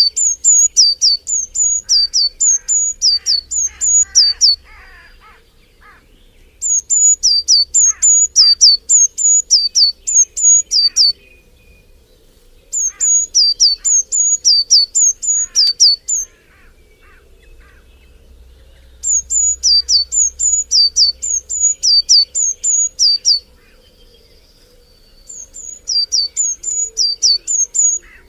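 A songbird singing loud bouts of a high two-note phrase repeated about twice a second, each note dropping sharply in pitch. The bouts last about four seconds and are separated by pauses of about two seconds, with one shorter bout near the end. Fainter chirps from other birds run beneath.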